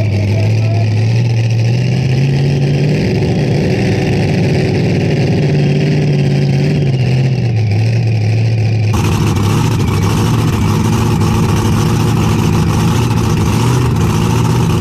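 Supercharged engine of a pulling tractor idling loudly, its revs raised briefly twice and let back down, then holding a steady low idle. The sound changes abruptly about nine seconds in.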